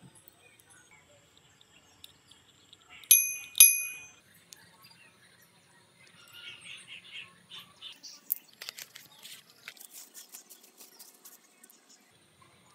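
Two sharp metallic clinks about half a second apart, each ringing briefly, as small metal bicycle bottom bracket parts knock together. Later come softer handling noises and a run of light clicking from the parts being turned in the hands.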